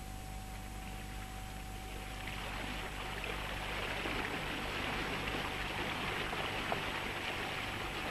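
Water rushing and splashing along the hull of a small sailing catamaran under way. It swells in about two seconds in and then holds steady, over a faint steady hum.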